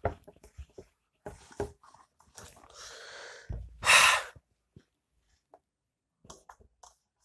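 Whiteboard duster rubbing across the board in quick strokes, then a loud breathy rush about four seconds in. A few faint marker ticks follow near the end.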